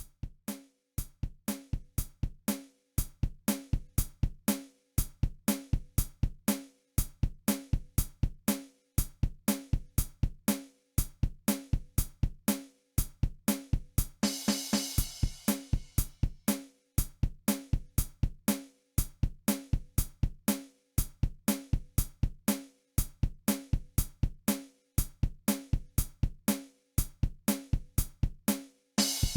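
Background music: a steady, repeating drum-kit beat, with a cymbal crash about halfway through and another near the end.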